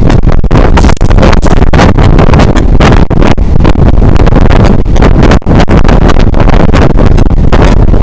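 A moving passenger train running at speed, heard from outside a carriage window, buried in heavy wind buffeting on the microphone. The sound is loud and rough, with brief dips every second or so.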